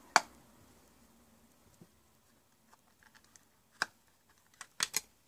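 Sharp clicks and snaps from a power bank's casing being pried open with a small tool. One loud snap comes just after the start, a few faint ticks follow, then another snap and a quick cluster of clicks near the end.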